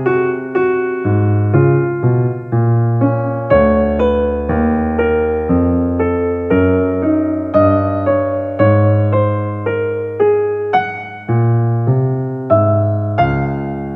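Background piano music: a slow melody with a note or chord struck about every half second, each ringing and fading.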